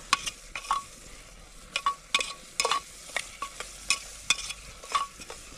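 A metal spoon stirring onions frying in oil in a pressure cooker: a dozen or so irregular scrapes and ringing clinks against the metal pot over a faint sizzle, as the onions brown.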